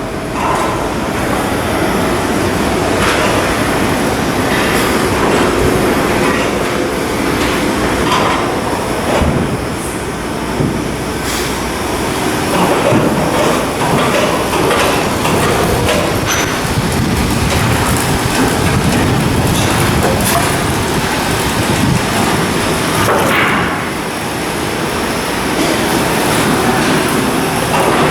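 Steady industrial din of shipbuilding work, with scattered sharp metal knocks and clanks.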